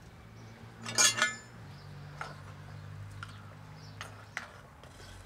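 A metal ladle knocking and clinking in a clay pot of soup, with one louder, briefly ringing clatter about a second in and a few light taps after it. A low steady hum runs underneath.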